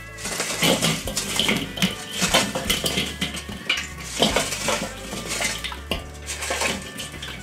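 Glowing charcoal briquettes clattering out of a metal chimney starter onto a kettle grill's grate. The chimney is shaken again and again, so the coals rattle against its metal walls in repeated bursts of clinking.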